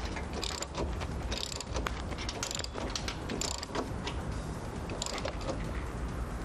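Ratchet wrench with a 22 mm socket tightening a motorcycle's rear axle nut, its pawl clicking in short runs on each back stroke, roughly once a second. The clicking stops about four seconds in.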